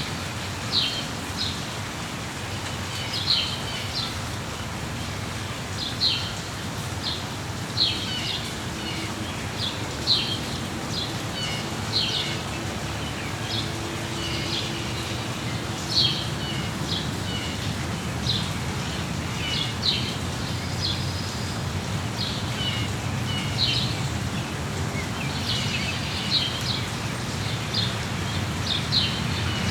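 Songbirds chirping in short, bright calls every couple of seconds over a steady hiss of falling rain.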